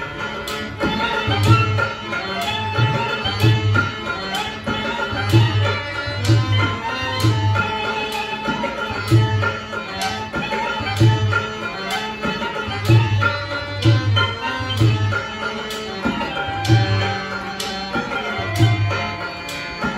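Live Rajasthani folk music: tabla played in a steady rhythm, its deep bass drum ringing out again and again under sharp treble strokes, with a melodic instrument line over it.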